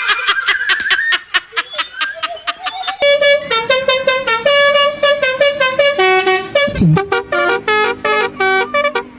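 A multi-tone 'telolet' bus air horn playing a tune, its notes stepping up and down in pitch. Before it, for about the first three seconds, there is rapid clicking with a wavering tone.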